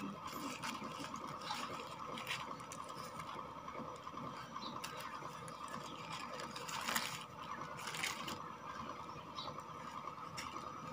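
Irregular crinkling and crackling of a foil-lined plastic wrapper being crumpled and pulled open by hand, over a steady background hum.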